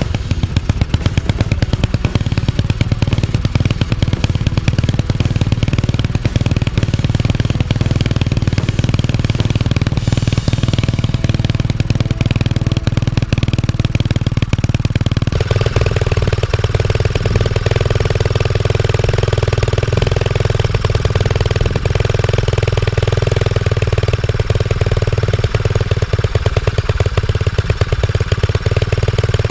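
A 125cc pit bike's single-cylinder four-stroke engine, freshly started, runs steadily at idle to warm up on a newly fitted 26 mm Mikuni carburetor. About halfway through, its note changes and then holds steady again.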